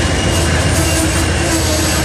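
Amtrak Amfleet passenger coaches rolling past close by: a steady, loud rumble of steel wheels on the rails, with a faint steady tone riding above it.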